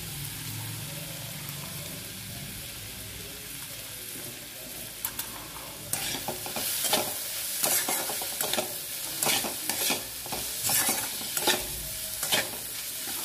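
Chopped onion and tomato with spices sizzling in oil in a steel kadhai. From about five seconds in, a steel spatula scrapes against the pan in repeated strokes, about two a second, as the mixture is stirred.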